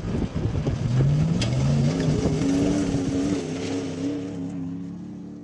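A vehicle engine accelerating: its pitch climbs, drops back briefly as if shifting gear, climbs again, then holds high and sags a little. A sharp click comes about a second and a half in.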